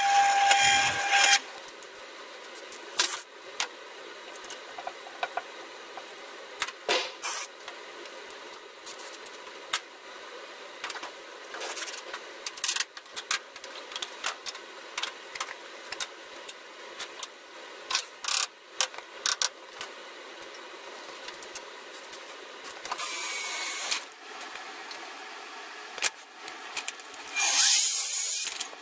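A bench drill press runs for about the first second, then stops. Scattered knocks and clicks follow as pallet-wood boards are handled and fitted, with a short burst of machine noise around two-thirds of the way through. Near the end a miter saw cuts through a pallet board.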